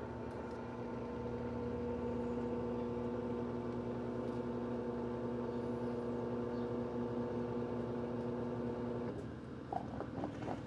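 Electrolux LED14 washing machine in its intermediate spin: a steady motor whine over a low drum rumble. The whine cuts off about nine seconds in, followed by a few light clicks.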